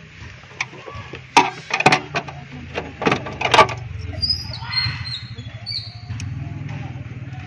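Several sharp clacks, then the Honda City's engine running with a steady low idle from about halfway in.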